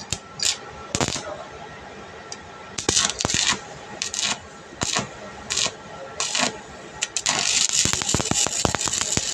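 Stick-welding arc struck in a series of short crackling bursts, then held as a steady crackle with sharp pops from about seven seconds in.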